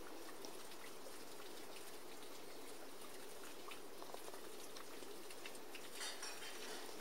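Faint steady background hiss, with a few light ticks and rustles.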